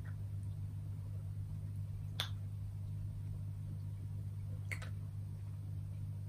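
Steady low hum of room tone, with a few faint sharp clicks: one about two seconds in and a quick pair near the five-second mark.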